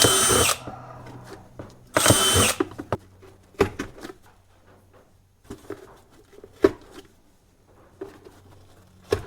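Power drill whirring in two short bursts, at the very start and about two seconds in, boring holes through cardboard. Scattered light clicks and knocks follow.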